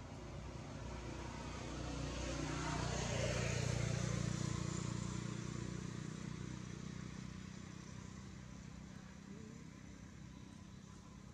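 A motor vehicle passing by: its engine and tyre noise swell to the loudest point about four seconds in, falling in pitch as it goes past, then slowly fade.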